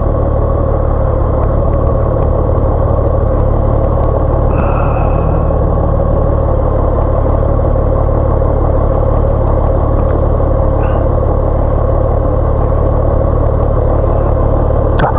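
Motorcycle engine idling steadily while stopped in traffic.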